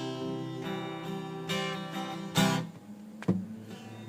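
Acoustic guitar strumming chords in an instrumental gap of an unplugged pop song, with a couple of accented strums, then a sharp pluck about three seconds in and a quieter last second.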